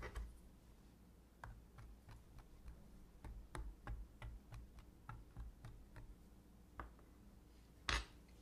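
A fork pricking puff pastry lining a tart tin: a run of light ticks, about three a second, with one louder click near the end.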